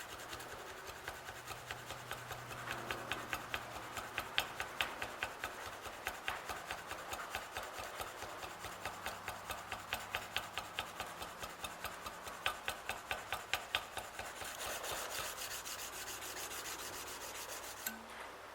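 220-grit sandpaper rubbed by hand along a steel Damascus knife blade in quick, rhythmic back-and-forth strokes, setting a lengthwise scratch pattern. The strokes smooth into a steadier rasp near the end, then stop.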